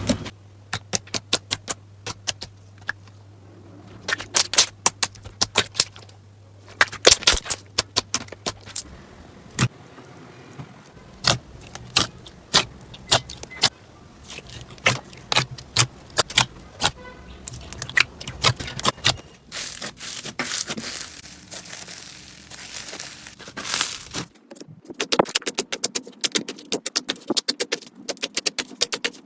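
Slime being squeezed and played with by hand, making irregular sharp crackles and clicking pops, with a brief lull about a third of the way in.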